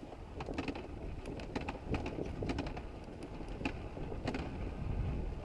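Dirt bike moving slowly over snowy ground: a low, steady engine and riding rumble with many scattered sharp clicks and rattles.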